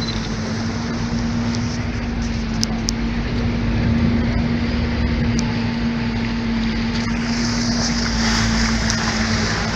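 Motorboat engine running at a steady speed with a constant low hum, over the rush of water along the hull. A higher hiss grows louder about three-quarters of the way through.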